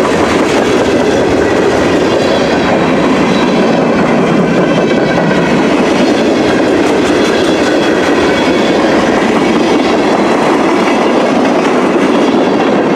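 CN manifest freight train's cars rolling past close by: a loud, steady rumble and rattle of steel wheels on the rails.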